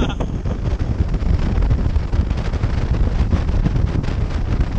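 Wind buffeting the microphone of a speedboat running at towing speed, mixed with the rush of its engine and the churning wake.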